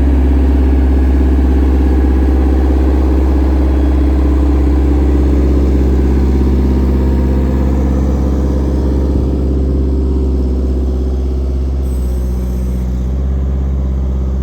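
Bobcat 753 skid steer's diesel engine running steadily, easing off a little in loudness about two-thirds of the way through.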